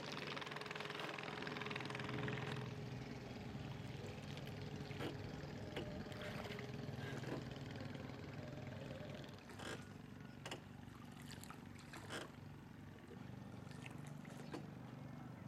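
Small boat's motor running steadily at low speed, with a hiss for the first couple of seconds and a few light knocks scattered through.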